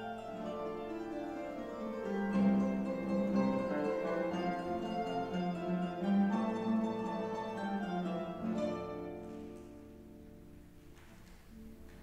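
Paraguayan harp being played: quick plucked runs and ringing chords. Past the middle the playing thins and softens to a quiet stretch, then picks up again near the end.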